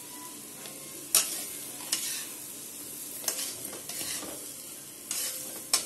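Flat metal spatula stirring radish sticks and spices in a metal kadhai, with several short scrapes against the pan over a steady low hiss.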